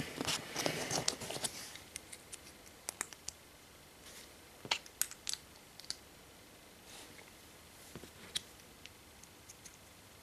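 Small plastic Lego minifigure parts being handled and fitted: rustling and clicking for the first second and a half, then a few scattered light clicks.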